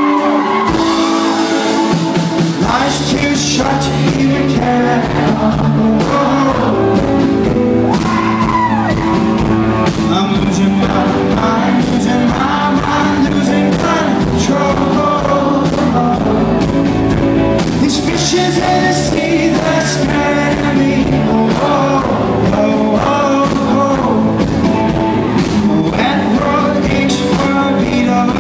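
Rock band playing live with a male lead singer. The bass comes in about two seconds in, and the full band continues under the vocal.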